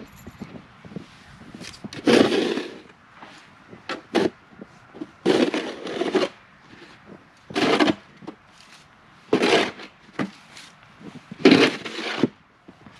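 Plastic snow shovel scraping and pushing snow along a sidewalk, its blade rasping over the pavement in repeated strokes roughly every two seconds.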